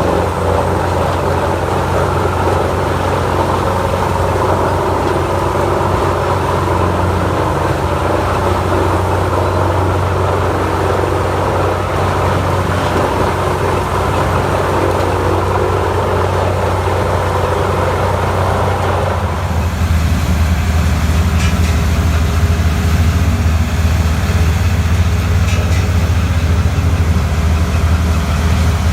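Large wood chipper running steadily, its engine drone under a dense grinding noise. About two-thirds of the way through the grinding noise falls away and a deeper, steadier engine drone remains, with a few faint clicks.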